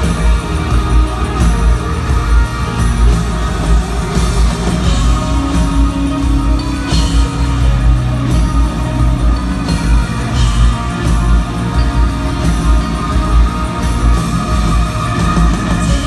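Live rock band playing an instrumental passage through an arena sound system, with electric guitars, bass and a steady heavy drum beat. No vocal line stands out.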